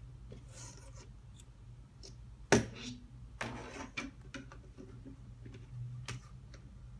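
Small clicks and taps of wires and tools being handled, with one sharp knock about two and a half seconds in and a short rustle just after, over a steady low hum.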